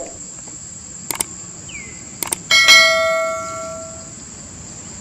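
Subscribe-button animation sound effect: two pairs of quick mouse clicks, then a notification bell strikes once and rings, fading out over about a second and a half.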